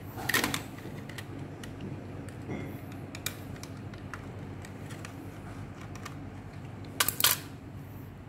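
Light clicks and taps of a screwdriver and small screws against the plastic and metal of a projector's power-supply housing. Two louder brief clusters of clicks stand out, one just after the start and one about seven seconds in.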